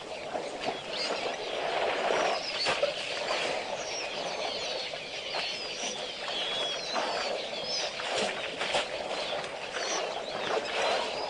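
Small birds chirping and twittering over a steady noisy background, with scattered clicks.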